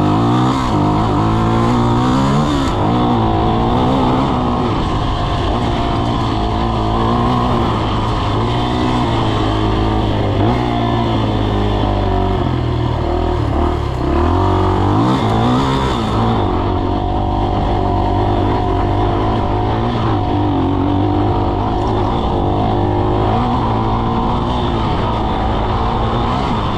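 Dirt bike engine running hard while ridden, its revs rising and falling over and over as the throttle is worked.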